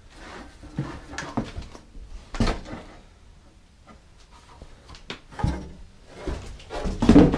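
A new sheet-metal rear valance panel being slid and lifted out of its cardboard box, the metal scraping and knocking against the cardboard in irregular bursts, loudest near the end.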